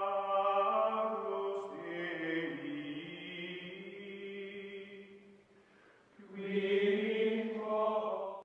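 Outro music of slow choral chanting in long held notes, fading out about five and a half seconds in and swelling back about a second later.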